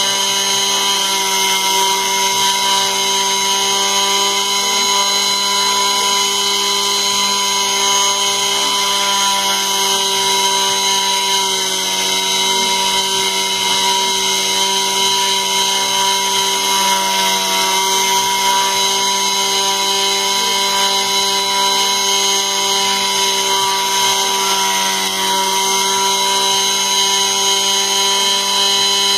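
CNC router spindle running with a steady high whine made of several constant tones while its small end mill carves a relief into wood.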